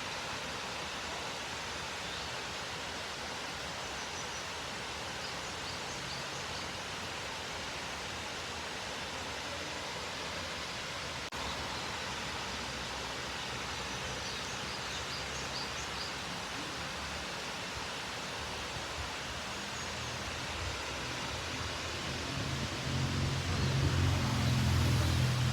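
Steady rushing of water from a small waterfall, an even hiss spread across the range. A low rumble swells up over the last few seconds.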